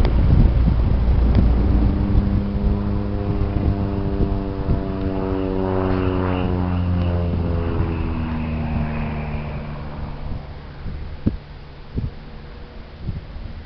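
Super Decathlon 8KCAB aerobatic plane's four-cylinder Lycoming engine and propeller droning overhead. The drone swells toward the middle, then slides lower in pitch and fades. Wind rumbles on the microphone at the start.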